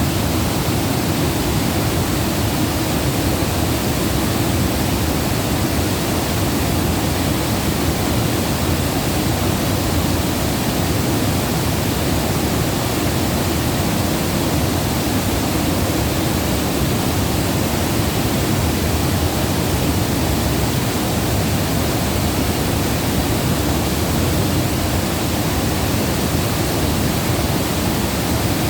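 Flowing water rushing steadily, a deep even sound with no pauses or changes.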